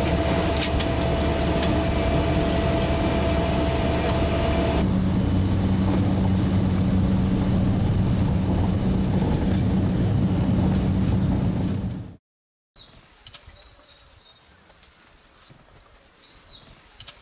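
Engine and propeller of a small light aircraft, heard loud and steady from inside the cabin, its note changing about five seconds in; it cuts off abruptly. Then quiet outdoors with short high bird chirps in little groups.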